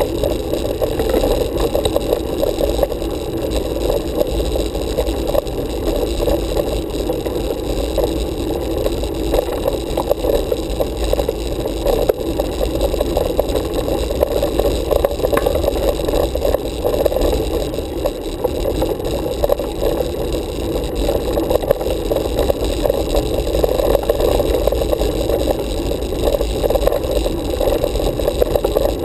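Road bicycle riding on tarmac, heard through a handlebar-mounted camera: a steady noise of tyre and road vibration carried through the mount, with light rattling.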